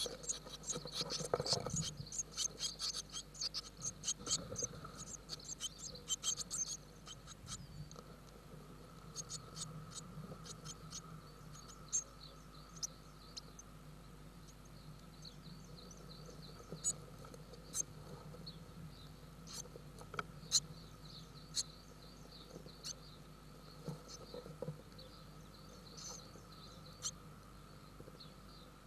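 Scratching and rustling on the dry nest material inside a blue tit nest box as the adult and chicks shift about. Busy for the first seven seconds or so, then scattered single clicks over a faint steady hum.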